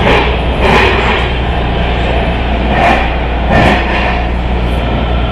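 MARTA rail car running, heard from inside the cabin: a steady rumble with a low motor hum. It is broken by two pairs of short clattering knocks, the first pair near the start and the second about three seconds in, typical of the wheels crossing rail joints.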